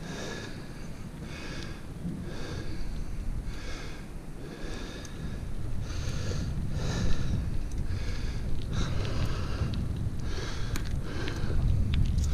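Bicycle being ridden over asphalt, with a steady low rumble of wind and tyres. Over it, short breathy puffs about once a second, the rider breathing hard close to the microphone.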